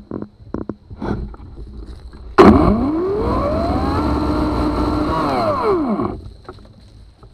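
Ego CS1800 56-volt brushless battery chainsaw triggered about two seconds in: the motor and chain whine up quickly in pitch, run at full speed for about three seconds, then wind down and stop when the trigger is released. A few crunches and rustles of dry leaves come before it.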